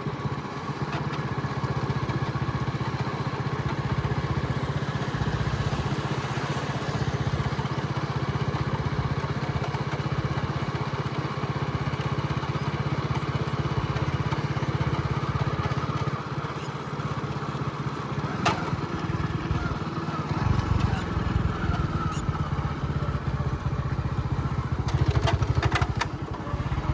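A vehicle engine running steadily, with a low, rapid pulse that grows heavier about twenty seconds in.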